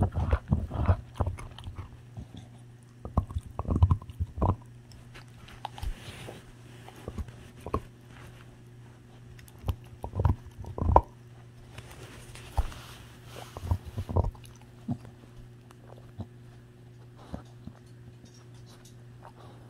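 A Staffordshire bull terrier chewing a hollow marrow bone up close: bursts of sharp crunches and clicks of teeth on bone, with quieter spells between.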